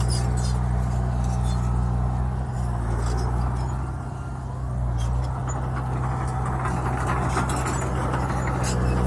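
Heavy diesel engine of earthmoving machinery running steadily, easing off briefly about four seconds in and then building again.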